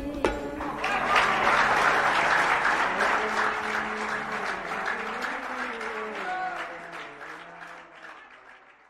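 Audience applause for a live song: the last sung and played notes die away and clapping swells up about a second in, then fades out toward the end.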